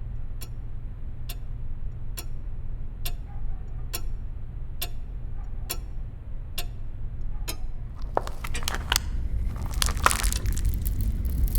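A clock ticking, a sharp click about once a second, over a steady low hum. About eight seconds in the ticking gives way to irregular crackling and rustling that grows louder.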